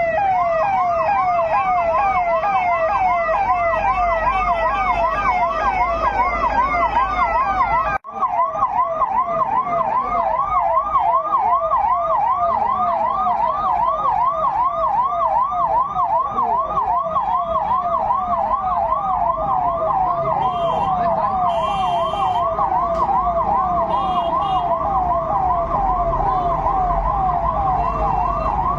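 Police vehicle's electronic siren in a fast yelp, its pitch sweeping up and down a little over twice a second. It briefly cuts out about eight seconds in, then carries on at the same rate.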